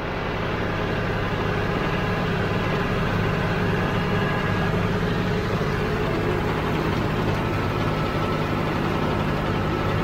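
Farm tractor's diesel engine running steadily under load while driving a Rhino rotary cutter (bush hog) mowing grass.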